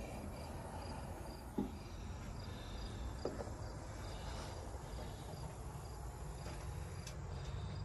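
Insects chirping steadily in the background, a faint high pulse about three times a second, over a low rumble, with two small knocks about one and a half and three seconds in.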